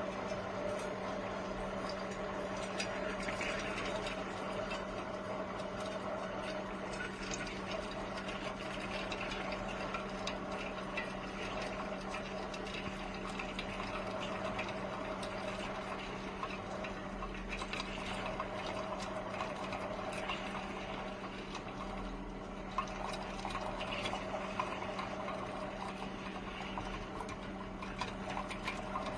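Hamilton Beach FlexBrew Trio coffee maker running, with a steady hum under crackling, gurgling water.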